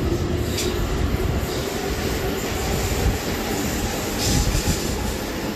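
Electric commuter train running through a station platform at speed without stopping: a steady rumble of wheels on rail, with brief high-pitched flares of wheel noise a few times.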